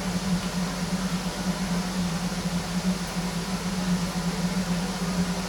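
Metro train standing at a station platform: a steady low hum from its onboard equipment over an even hiss.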